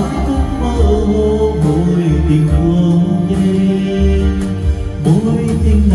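A karaoke backing track of a slow pop ballad with a steady bass line, played through FBT Verve 110 10-inch two-way speakers, with a man singing along live through a handheld microphone.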